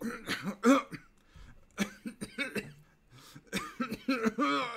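A man coughing and clearing his throat several times, with short bits of muttered voice in between.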